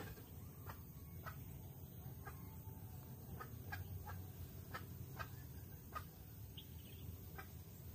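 Faint, short bird calls, about ten of them at irregular spacing, over a steady low rumble.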